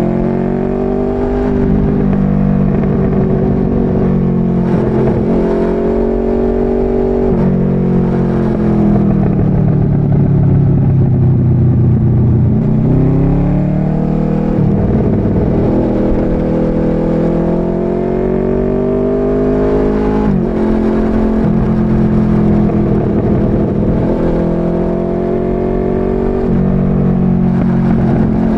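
Motorcycle engine under way, its revs climbing and falling again and again as the rider accelerates and eases off, with a sudden drop in pitch about two-thirds of the way through.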